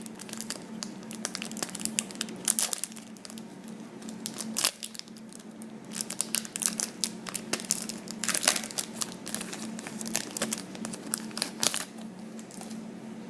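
Foil booster-pack wrapper of Pokémon trading cards crinkling and tearing as it is opened by hand, in irregular clusters of sharp crackles.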